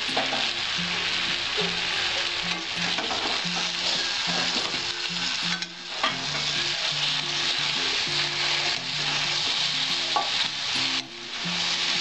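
Mixed vegetables sizzling in hot oil in a metal kadai while a metal spatula stirs and scrapes them around the pan.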